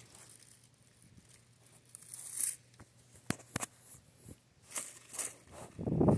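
Dry, withered tomato leaves and stems rustling and crackling as a hand pushes in among the plants, with two sharp clicks about halfway through. Near the end, wind buffets the microphone in a loud low rumble.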